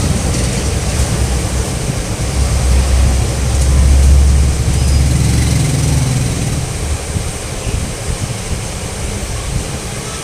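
Water jets of a fountain rushing and splashing, with a low rumble that swells about three seconds in and eases off after about six seconds.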